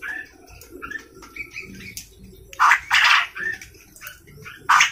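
A quail calling: short, harsh, raspy calls in pairs, two around the middle and two more at the end. This is the crowing call the bird gives, likened to a chicken crowing.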